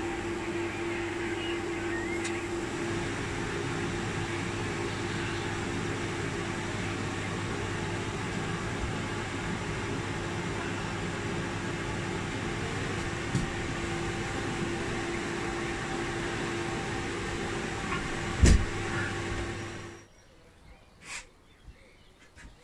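Steady hum and whir of an electric machine, likely a fan, running evenly. A single thump comes late on, and shortly after it the hum cuts off abruptly, leaving only a few faint ticks.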